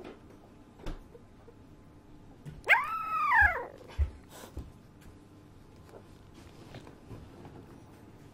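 Young puppy giving a single whining cry about three seconds in, rising and then falling in pitch. A few soft knocks of movement come before and after it.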